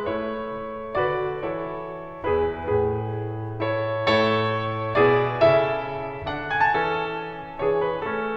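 Slow solo piano music, chords struck about once a second and left to ring and fade.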